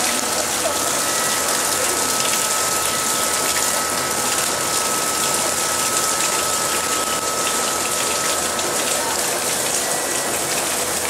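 Steady rush of water pouring into a small pool, with a faint steady whine that stops about nine seconds in.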